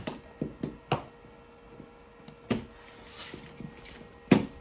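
Several short knocks and clicks of handling on a wooden table, spaced irregularly, with the loudest one near the end, over a faint steady hum.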